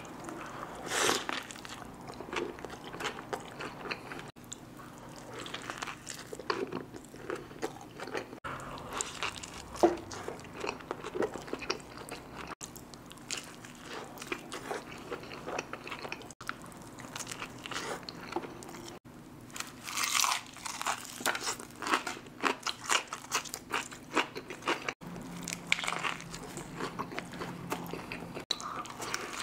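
Close-miked eating: big bites and chewing of a burger, with crisp crunching of fried onion rings, a thick run of crunching about two-thirds through. The audio jumps at abrupt cuts every few seconds.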